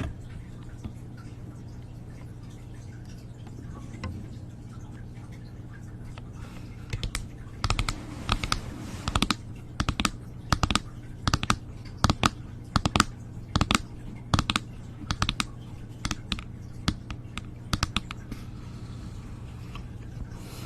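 ASMR tapping: a run of sharp, irregular taps, about two a second, starting about a third of the way in and stopping shortly before the end, over a steady low hum.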